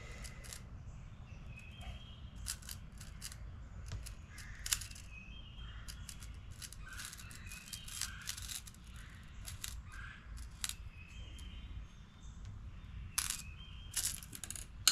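Light, irregular clicks and small taps of shotshell primers being turned over and settled on a primer pan, with a cluster of sharper clicks near the end.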